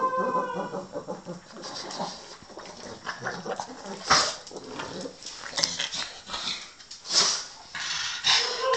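Pug sniffing and snuffling in irregular bursts with its nose to the floor as it hunts for its food, louder puffs about four and seven seconds in. A short whine at the start and again near the end.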